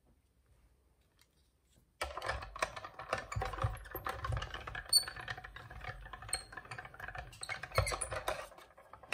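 Hand-cranked die-cutting machine rolling a plate sandwich through, the steel die crunching as it cuts moss-green cardstock: a dense scratchy crackle with many small clicks and a few short squeaks, starting suddenly about two seconds in.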